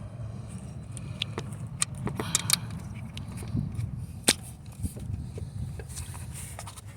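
Sharp metallic clinks and light scraping of tools and parts being worked in a car's engine bay, with the loudest clink about four seconds in, over a steady low rumble.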